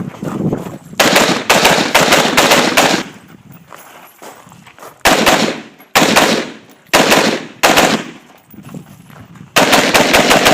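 AR-15 rifle in .223/5.56 fired rapidly in strings of shots. A fast run of shots begins about a second in and lasts about two seconds, spaced shots follow a few seconds later, and another fast run comes near the end.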